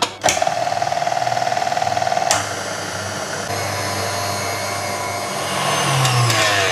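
KitchenAid Artisan stand mixer whisking egg whites in its steel bowl: the motor starts just after a click and runs steadily, with a sharp click about two seconds in. Near the end its pitch shifts as the speed lever is moved.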